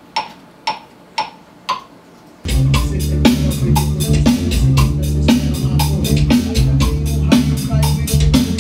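A click count-in of four sharp ticks, about two a second. Then a drum track starts, with a passive electric bass guitar playing a loud, low line along with it.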